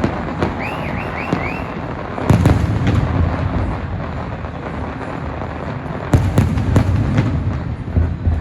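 Aerial fireworks shells bursting, with deep booms and sharp cracks over a continuous rumble. The heaviest volleys of bursts come about two seconds in and again about six seconds in.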